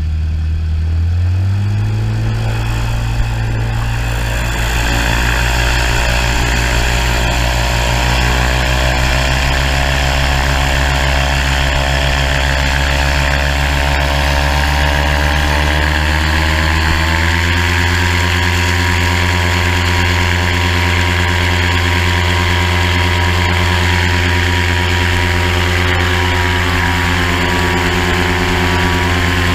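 RAF 2000 GTX SE gyroplane's engine and pusher propeller running, heard from the cockpit. It speeds up sharply about a second and a half in and climbs slowly, then steps up again about seventeen seconds in as power comes on for the takeoff roll, holding steady after that.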